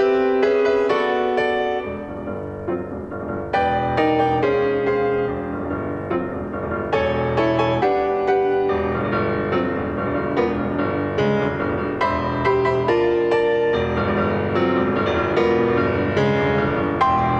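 Solo piano playing a contemporary classical piece of repeated struck chords. It falls quieter about two seconds in and comes back with a loud chord at about three and a half seconds.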